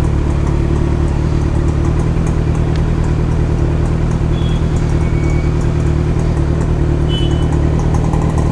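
Motorcycle engine, a Kawasaki Z900's inline-four, running at steady revs while riding, with road noise around it.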